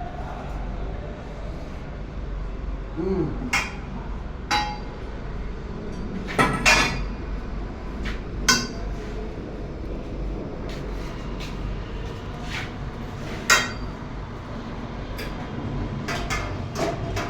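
Irregular metallic clinks and knocks, a dozen or so scattered strikes with a short ring, as of a spanner and steel mounting hardware being handled and struck, over a steady low hum.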